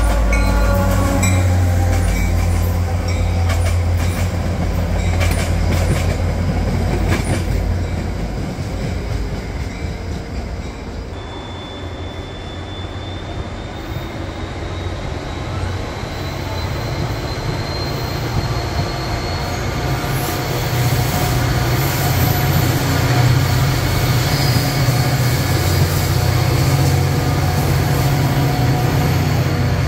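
A Metro-North F40PH diesel locomotive passes with its engine running, then its passenger coaches roll by with wheel and rail noise and a thin, high wheel squeal from about a third of the way in. In the second half a second diesel-hauled commuter train passes, and the running of its locomotive grows louder toward the end.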